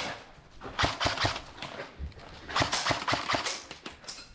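Airsoft guns firing: sharp clacking shots in quick groups, about a second in and again in a longer string near the middle.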